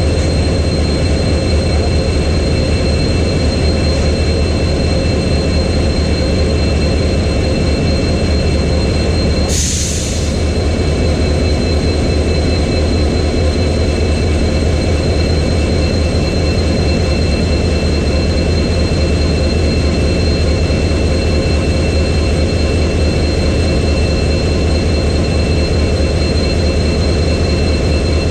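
WDP-4B locomotive's EMD 16-cylinder two-stroke diesel engine idling with a steady low hum and a steady high-pitched whine over it. A short burst of hiss about ten seconds in.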